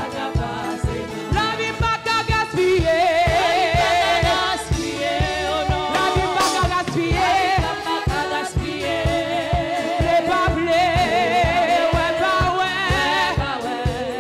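Gospel praise song: a singer holding notes with a wide vibrato over a band with a steady drum beat.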